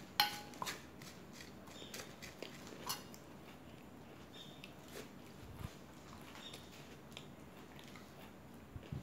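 A metal spoon clinks sharply against a stainless-steel bowl just after the start. Sparse small crisp clicks and crunches follow as puffed rice is eaten.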